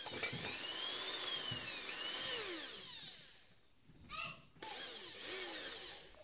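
Electric hand drill boring into a pipe end cap in two runs, the first to about three seconds in and the second from about four and a half seconds to near the end. Its whine rises and falls as the bit bites and eases off.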